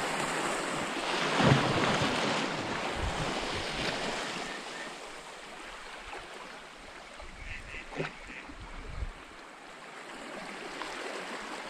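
Sea waves washing against a rocky shore, with wind noise, louder over the first few seconds and then easing off. A couple of faint ticks come about eight seconds in.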